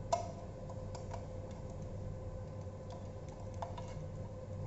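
Light plastic clicks and ticks from hands handling an electric bike's wiring harness and its plug connectors, the sharpest click just after the start, over a steady hum.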